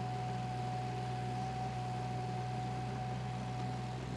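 Excavator's diesel engine running steadily: a constant low hum with a thin steady whine over it.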